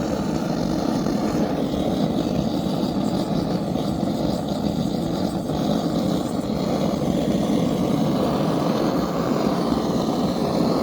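Gas blowtorch flame burning steadily with a constant rush, charring the surface of a piece of wood.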